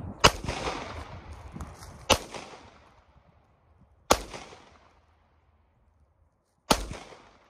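Semi-automatic pistol fired four times, a shot about every two seconds with a slightly longer pause before the last. Each shot rings off in a fading echo, and the first is the loudest.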